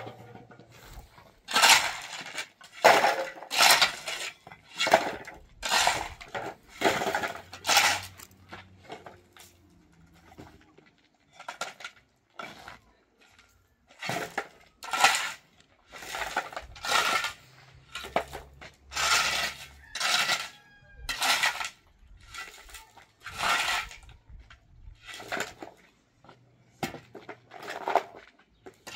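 Repeated scraping strokes, roughly one a second, each a short harsh rasp, with a lull of several seconds in the middle and a few weaker strokes near the end.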